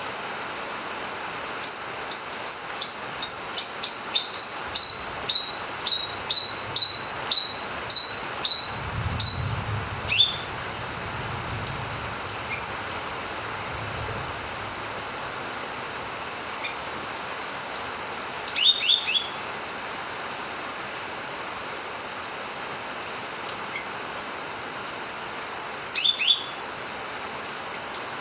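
Greater green leafbird (cucak wilis) song: a run of about twenty short, clear whistled notes, about three a second, followed by a few brief chirping phrases spaced several seconds apart, over a steady hiss.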